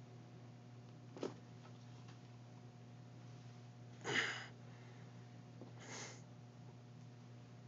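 Steady low room hum with three short, noisy breaths from a person, about one, four and six seconds in; the one about four seconds in is the loudest.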